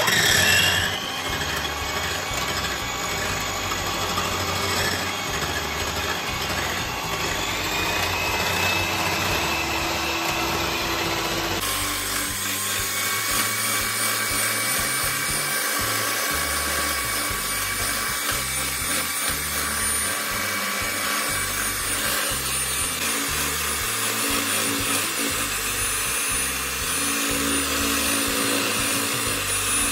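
Electric hand mixer running steadily, its twin wire beaters whisking raw eggs in a bowl.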